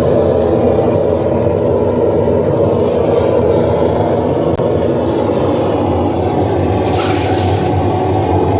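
A steady, loud mechanical drone, with a short scraping noise about seven seconds in.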